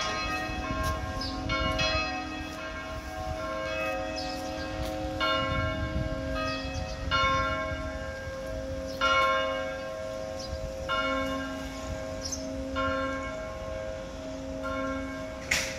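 Slow bell chimes: a chord of bell tones is struck about every two seconds and rings away over a steady held tone. A sharp click comes near the end.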